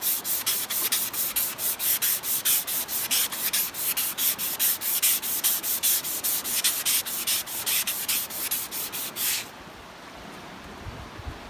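Strip of 320-grit emery cloth pulled back and forth around a steel waterwheel shaft, shoeshine fashion, polishing off scratches and high spots before new bearings go on. The strokes come evenly, about five a second, and stop about nine and a half seconds in.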